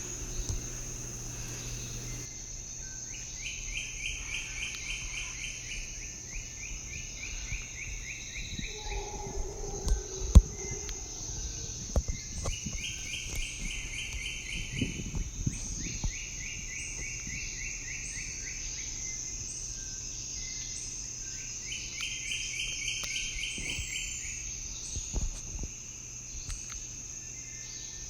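Tropical insects keep up a steady high drone while a bird sings short rapid trills in three bouts, each bout two phrases long. A few dull low thumps break in, the loudest about ten seconds in.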